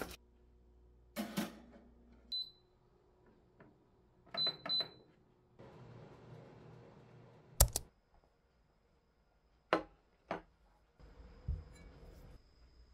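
Baking trays clatter on a counter, then a countertop electric oven's control panel gives short electronic beeps, one and then three quick ones, as it is set. Sharp clicks and knocks follow, the loudest a single sharp click in the middle.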